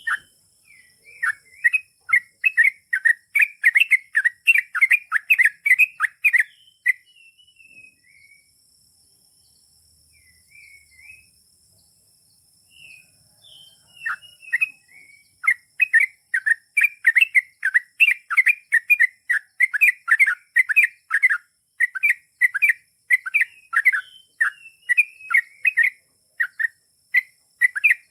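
Yellow-vented bulbul (trucukan) singing a long, rapid series of chirping notes, about three a second. It breaks off about seven seconds in, leaving only a few scattered notes, then resumes the fast run about halfway through.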